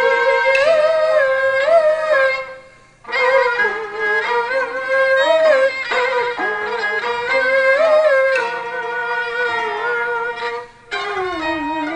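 Peking opera accompaniment: a bowed fiddle, the jinghu, plays a bending, ornamented melody with two short breaks.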